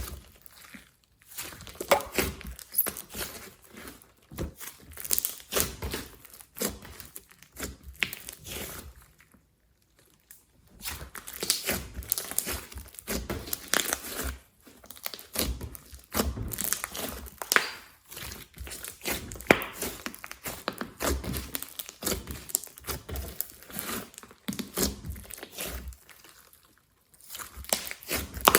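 Hands squishing and kneading slime as clay and glitter are mixed in: dense runs of sticky crackles and small pops, coming in bursts with short pauses between them.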